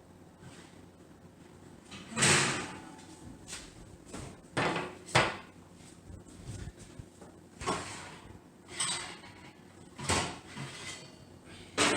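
Kitchen items being handled: about six separate knocks and clatters at uneven intervals, the loudest about two seconds and about five seconds in.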